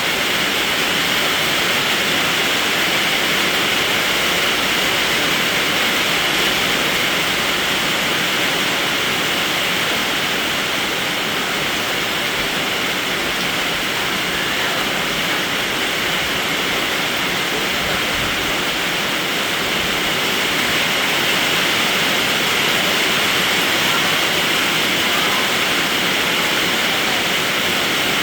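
Steady rain, a dense even hiss with no single drops or other events standing out.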